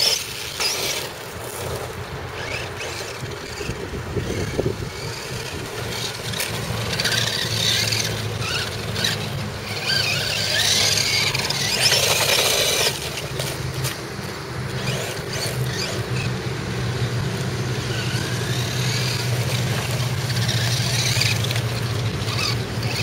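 Electric motor and gearing of a Thunder Tiger Jackal 1/10-scale 4WD RC buggy whining, rising and falling in pitch as it is driven up a loose dirt slope, with a steady low hum underneath.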